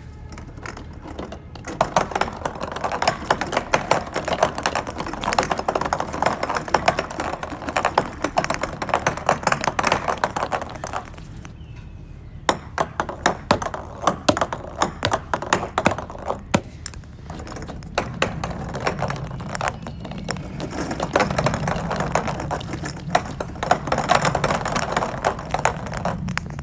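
Many small plastic balls clattering and rolling together, a dense stream of rapid clicks that stops briefly about halfway and then starts again.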